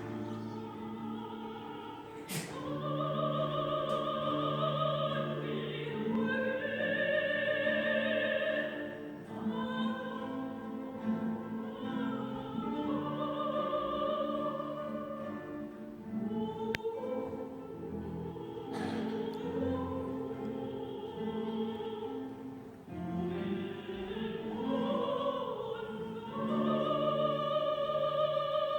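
Soprano singing long held notes with vibrato over a guitar orchestra's accompaniment, with a few brief clicks.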